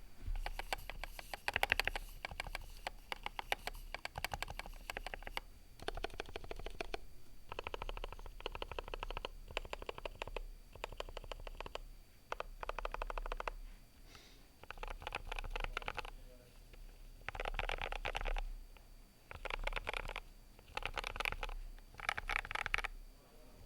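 Typing on a GMMK Pro mechanical keyboard with Durock Gold V2 stabilizers: rapid keystrokes in bursts of a second or so, with short pauses between them.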